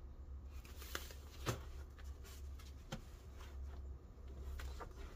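Pages of a spiral-bound service manual being turned and handled: paper rustling with a few short knocks, the sharpest about a second and a half in, over a steady low hum.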